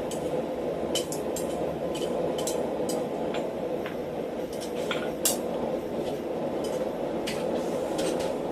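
Blacksmith's forge running with a steady rush of air, and scattered light metallic clinks of tools and stock, one sharper clink about five seconds in.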